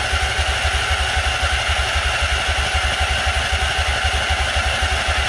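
Riding lawn mower engine cranking on its electric starter without catching, a steady rhythmic chugging of about eight beats a second: the engine is not firing because, after sitting over a year, its fuel pump has not yet filled the carburetor, so it will need priming.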